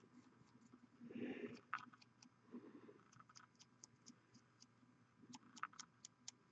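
Near silence, with faint scattered small clicks and a few soft rustles.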